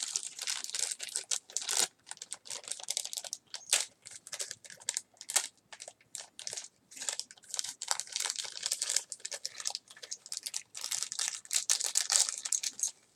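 Plastic packaging crinkling and crackling in the hands, with many quick clicks and a few tearing sounds, as small toy accessories are unwrapped.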